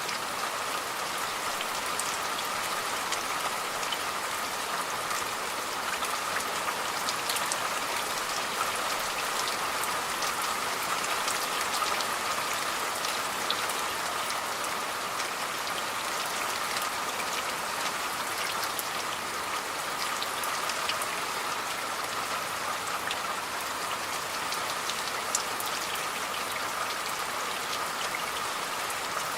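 Steady rain falling, an even hiss with many small drop impacts ticking through it.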